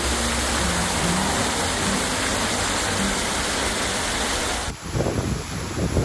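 Artificial waterfall splashing down a rock face: a steady, even rush of falling water. Near the end it cuts abruptly to a rougher, more uneven rush with a low rumble.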